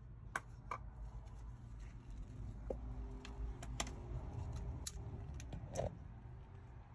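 Scattered sharp metallic clicks and clinks of a part being worked off a top-load washer's drive mechanism by hand, over a low steady hum.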